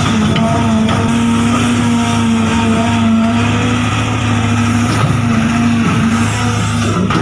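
Small electric motors and gearing of remote-control model construction machines running with a steady whine that wavers slightly in pitch.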